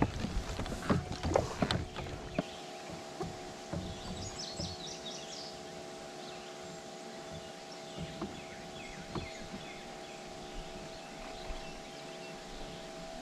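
Knocks and clicks of gear being handled aboard a fishing kayak for the first two seconds or so, then a faint steady hum with a few brief high chirps about four seconds in and scattered small ticks.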